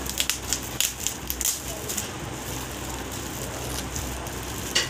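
Shiny gold gift wrap crinkling and tearing as a present is pulled open by hand, in quick bursts of crackles over the first second and a half and once more, loudest, near the end.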